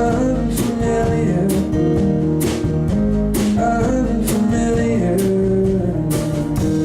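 Live country band playing an instrumental passage between sung lines: guitar over a steady drum beat.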